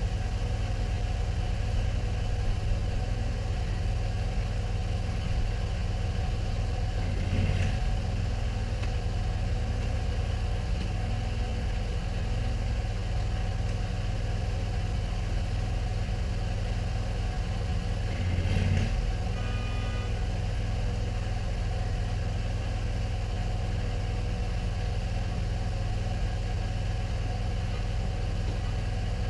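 Gas engine of a pressure-washing rig running steadily, with two brief louder surges about a third and two-thirds of the way through.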